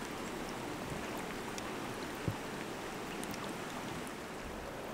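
Steady rushing of a shallow river running over rocks, with a single short knock a little over two seconds in.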